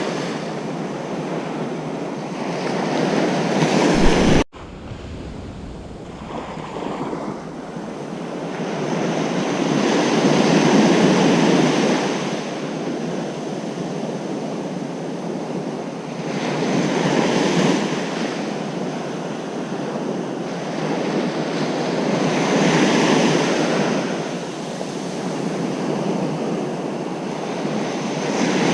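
Ocean surf breaking on a beach, the wash swelling and ebbing about every six seconds. About four seconds in the sound cuts off for an instant and comes back quieter.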